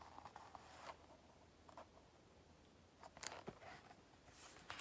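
Faint, brief paper rustles and handling clicks, like a picture book's page being turned: a cluster in the first second, another about three seconds in, and more near the end, with near silence between.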